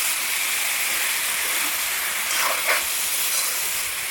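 Chicken and moong dal frying in a pan: a steady sizzle, with two faint scrapes about two and a half seconds in.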